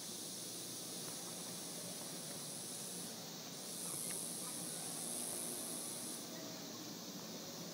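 High-pitched insect drone, held for a few seconds at a time, cutting out briefly about three seconds in and stopping again a little after six seconds.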